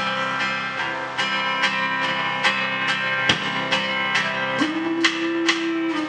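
Country band playing a song intro: acoustic guitars strumming a steady rhythm, about two and a half strokes a second, over upright bass. A long held note comes in about two-thirds of the way through.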